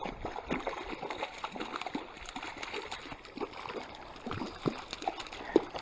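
Water splashing and trickling in many small, irregular splashes.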